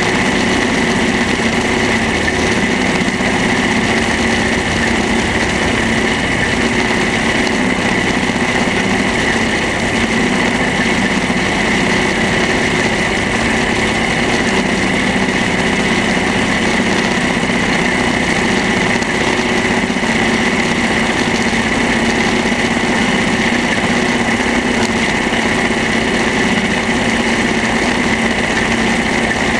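Small vintage tractor engine running steadily under load as it tows a loader wagon through mown grass, with the wagon's pickup and conveyor floor running.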